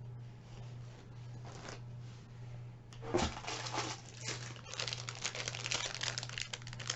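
Plastic packaging crinkling and tearing as an item is unwrapped. It starts about three seconds in and turns into dense, continuous crackling over the last couple of seconds.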